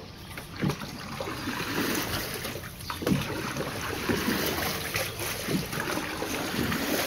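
Outrigger canoe paddle strokes in a paddling tank: the blade is planted and pulled through the water about once a second, each stroke a splash and churn of water.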